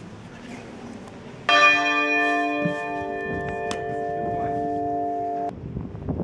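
A loud chord of several steady ringing tones starts suddenly about a second and a half in. Some of the higher tones drop out partway through, and the rest cut off abruptly about a second before the end.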